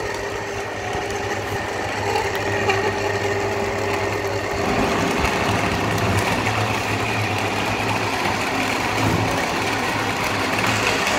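Geepas countertop blender's motor running steadily, blending chopped fruit into a pulp for juice. About four and a half seconds in, the sound gets slightly louder with a deeper hum.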